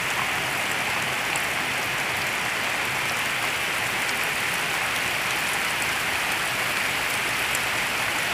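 Heavy tropical rain pouring onto flooded rice paddies, a dense, steady hiss of drops hitting standing water.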